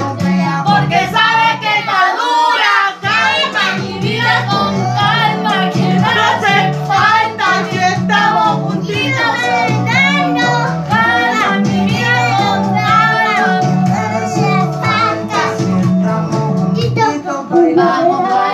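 A young girl singing along to reggaeton backing music with a steady, repeating bass line; the bass drops out briefly about two seconds in.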